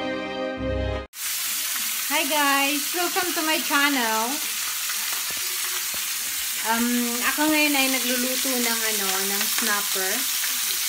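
Pieces of snapper frying in oil in a pan, a steady sizzle, with a woman talking over it. Intro music cuts off about a second in.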